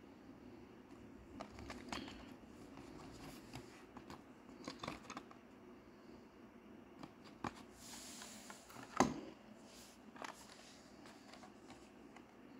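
A Hot Wheels carded blister pack, cardboard backing with a plastic bubble, is handled and turned over in the hands: scattered light clicks and crinkles, with a brief rustle and the loudest click about nine seconds in.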